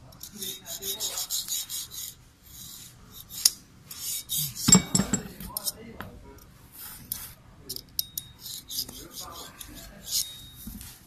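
Metal scraper blade scraping grime out of the dovetail rails of a cast-iron disc brake lathe slide, in a series of short, hissy strokes, with a louder knock about halfway through.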